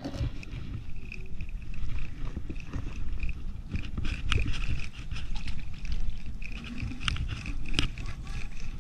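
Spinning reel being cranked to bring in a hooked bluegill: a soft gear whir that comes and goes in spells of a second or so, with scattered clicks, over wind rumbling on the microphone.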